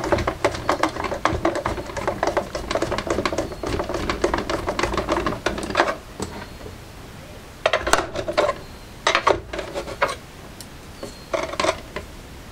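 Small hard clicks and clatter of a hand screwdriver and screws working on a boombox's plastic case: a dense run of rapid ticks for about six seconds, then three short bursts of clatter.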